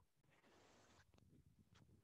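Near silence: faint room tone with a brief soft rustle about half a second in.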